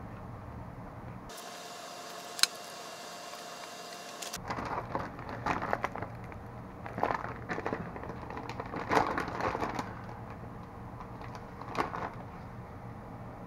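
Plastic deli-meat package crinkling and rustling as it is handled, in irregular bursts from about four seconds in until about ten seconds in. A sharp click sounds once early on and once near the end.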